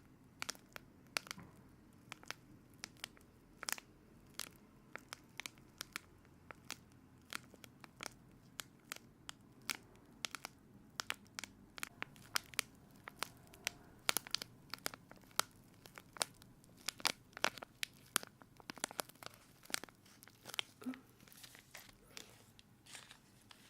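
Close-up crinkling and crackling: many sharp, irregular clicks, several a second, coming thicker in the second half.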